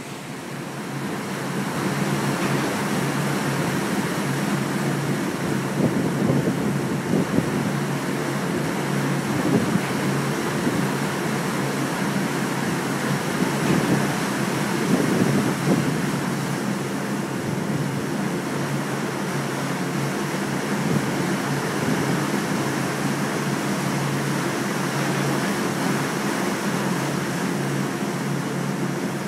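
Steady outdoor rushing noise of wind and river water, with a low, even hum underneath.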